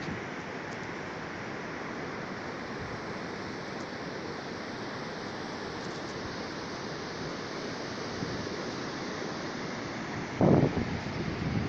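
Ocean surf washing in a steady rush, with wind on the microphone. A short, louder low thump comes near the end.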